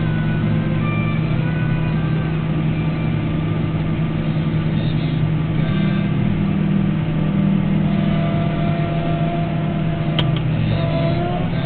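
Farm machinery engine running steadily under load, a continuous low drone, with a single sharp click about ten seconds in.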